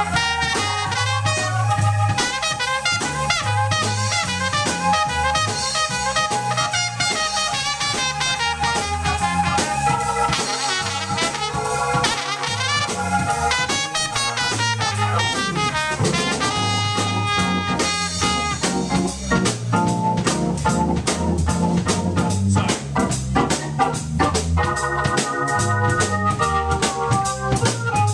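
Instrumental break by a jazz trio of trumpet, organ and drum kit playing a swing tune live. A long held note runs through the first half, and the playing gets busier and more rhythmic in the second half.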